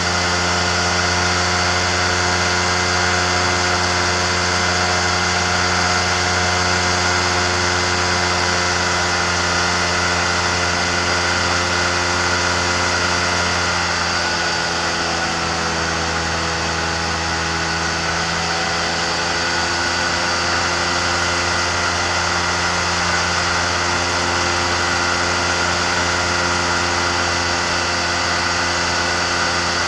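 Amphibious flex-wing microlight trike in cruising flight: its pusher engine and propeller run steadily with rushing wind. The engine note sags slightly about halfway through, then comes back up.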